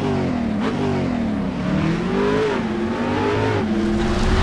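An engine revving up and down several times, its pitch rising and falling in quick blips and then climbing more slowly about two seconds in before dropping back.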